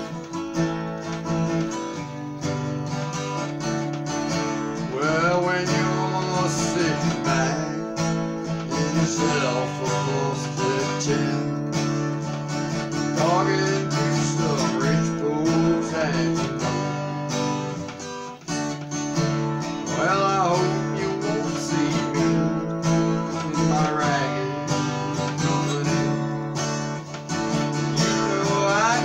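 Acoustic guitar strummed steadily, with a man's voice singing in phrases over it.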